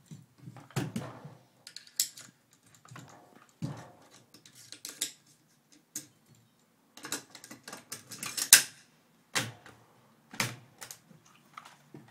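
AR-15 rifle parts being handled and fitted back together during reassembly: irregular metallic clicks and clacks, the sharpest about two-thirds of the way through.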